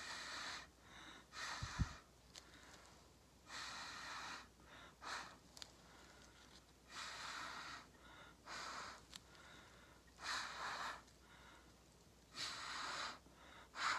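Short puffs of breath blown through a plastic straw onto wet acrylic paint, about eight blows with pauses between, spreading the paint outward across a tile coaster in the straw-blowing fluid-art technique.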